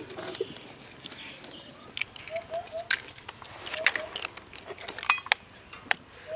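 Eggs being cracked open with a knife: a string of sharp shell cracks starting about two seconds in, with a few short bird chirps between them.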